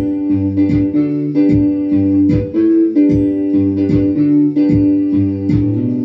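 Gospel band music: guitar and a bass line over a steady beat.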